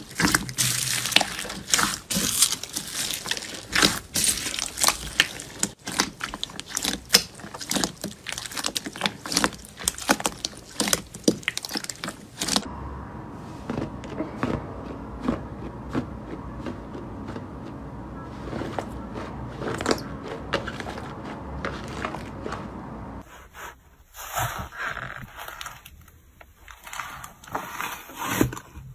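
Slime worked by hand in three short takes. First, slime squeezed through a bowl of small beads makes a dense, crisp crackle of many sharp clicks. About twelve seconds in it changes to a softer, lower sound of a thick fluffy slime being pressed and peeled, and near the end to the sticky pulling of a glossy slime lifted from its tub.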